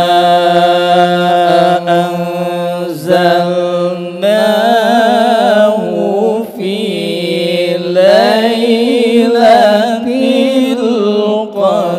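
A man reciting the Quran in the melodic mujawwad style: the opening verse of Surah al-Qadr sung as long held notes with ornamented, wavering runs, broken by brief pauses for breath.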